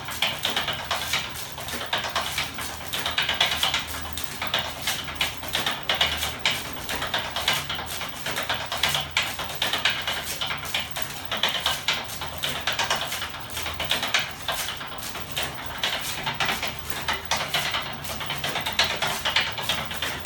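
A homemade battery- and electric-motor-driven flapping-wing machine running, its metal frame and linkages clattering in a rapid, continuous stream of clicks and knocks that swells every few seconds.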